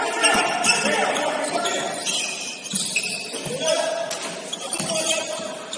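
Gym sounds of a basketball game: a ball bouncing a few times, players' voices and a jumble of short high squeaky tones, thickest in the first two seconds, from sneakers on the court.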